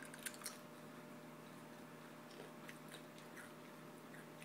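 A child chewing a crisp pani puri, a few faint crunches and small clicks over a low, steady room hum.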